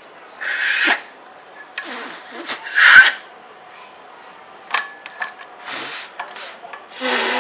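Metal engine parts and hand tools being handled on a workbench: several short scraping, rasping strokes, the loudest about three seconds in, and a few sharp metallic clicks around five seconds.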